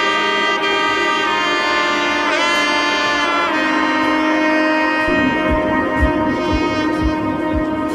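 Background music: sustained saxophone-like melody over held notes, with a steady beat coming in about five seconds in.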